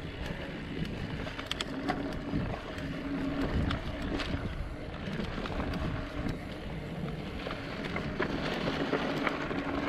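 A mountain bike ridden along a dirt trail: steady tyre and drivetrain noise with many small clicks and rattles over the bumps, and wind on the microphone.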